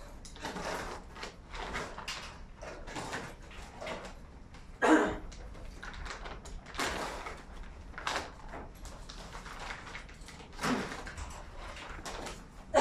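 Styrofoam packing squeaking and scraping in short irregular rubs as a foam box is handled and opened, with one louder squeak about five seconds in.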